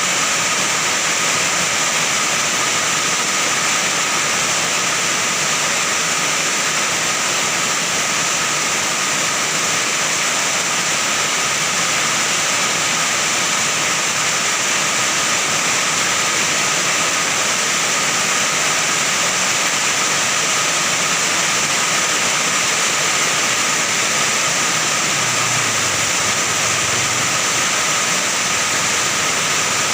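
Heavy rain pouring onto an iron roof, a loud, steady, even rush with no let-up.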